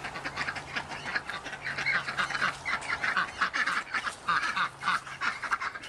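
A flock of domestic ducks quacking, with many rapid, overlapping calls that grow louder about two seconds in.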